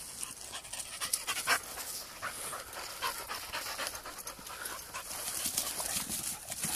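A dog panting, with grass rustling steadily.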